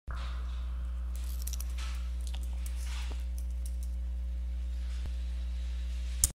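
Computer keyboard keystrokes typing a short command, a scatter of light clicks over the first few seconds and a sharper click near the end, over a steady low hum.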